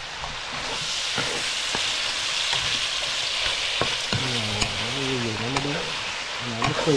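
Pork ribs sizzling steadily as they fry in a nonstick pan, stirred with a wooden spatula that clicks against the pan now and then.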